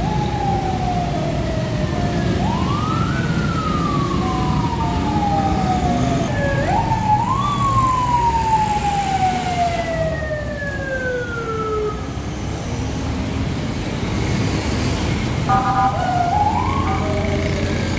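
A siren wailing over street traffic: its pitch rises quickly and then falls slowly, twice, each fall lasting several seconds. A steady low traffic rumble runs underneath.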